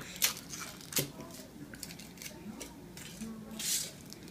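Crinkling and rustling of a chocolate surprise egg's wrapper being handled and peeled, in a string of short scratchy crackles, the sharpest about a quarter-second in and another near one second in.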